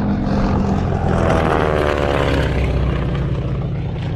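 Propeller airplane making a fast low pass at about 200 miles per hour. Its engine drone swells to its loudest about halfway through, and the pitch drops as it goes by.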